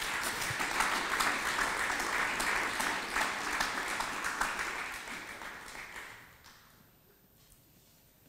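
Audience applauding in a lecture hall, steady at first and then dying away about six seconds in.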